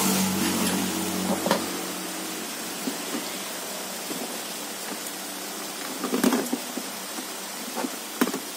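Steady background hiss with a low hum, broken by a few sharp clicks and knocks, a small cluster of them about six seconds in.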